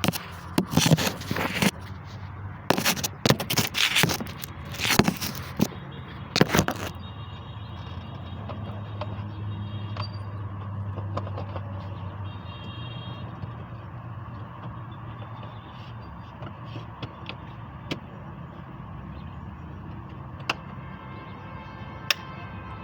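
Sharp clattering and scraping of car parts being handled, a burst of knocks over the first seven seconds, then a steady low rumble with a few faint ticks.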